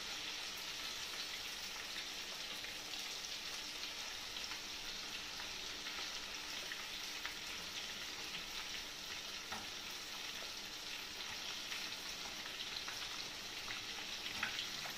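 Breaded chicken breast pieces deep-frying in very hot oil, a steady sizzle with light crackling. Faint clicks and scrapes come from the utensil as the pieces are turned.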